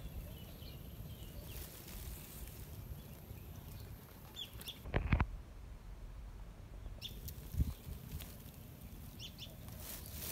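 Rustling and handling noise as a small freshly caught fish is taken off the hook, with one louder thump about five seconds in and a few short high chirps.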